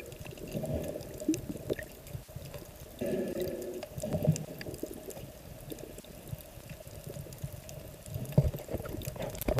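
Water sloshing and bubbling around a camera held just under the surface, with faint scattered clicks. A short, muffled, voice-like hum comes about three seconds in, and there are a couple of knocks near the end.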